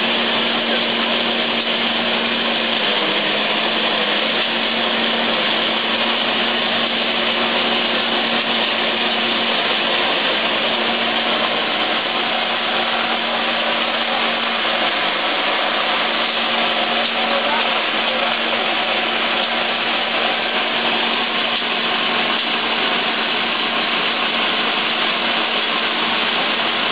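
Electric corn husking machine running steadily, its motor humming under a constant rushing noise as its rollers strip the husks from ears of corn fed through it.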